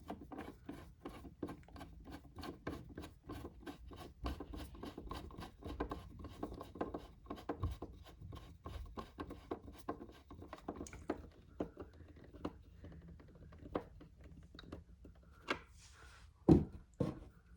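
A screw being driven in by hand with a screwdriver, a quick even run of small scraping clicks, about four a second, for roughly eleven seconds. Then come a few scattered scrapes and two louder knocks near the end.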